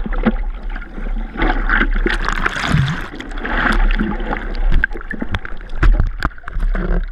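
Seawater splashing and sloshing around a surfboard being paddled through the surf, heard close at the waterline, with many small sharp ticks of drops and spray and a steady low rumble underneath.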